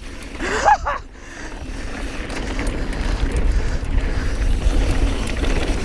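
A mountain bike rolling along a dirt trail: wind on the camera microphone and tyre rumble, a steady noise that builds over the first couple of seconds.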